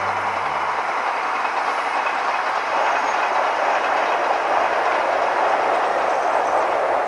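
Odakyu electric train running past on its line, a steady noise of wheels on rails that grows louder about three seconds in.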